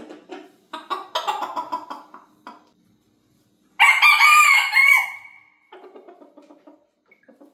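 A rooster crows once, loud, for about a second and a half, with a falling tail at the end. Before and after the crow, chickens cluck in short choppy calls.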